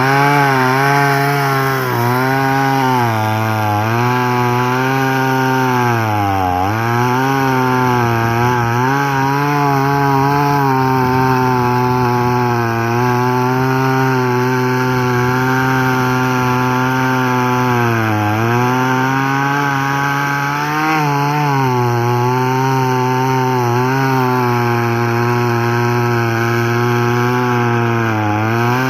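Two-stroke chainsaw, a '6000' model, running at full throttle while cutting through a tree. Its engine note sags in pitch several times as the chain bites into the wood and then picks back up.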